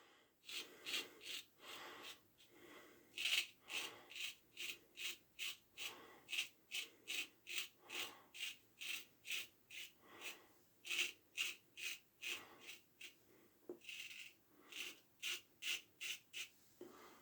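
1907 Ever Ready safety razor scraping through lathered stubble in short, quick strokes, about two to three a second, on an against-the-side-grain pass.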